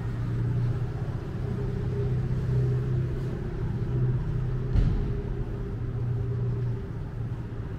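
A motor vehicle's engine running at low revs: a steady low hum that holds its pitch, with a short thud about five seconds in.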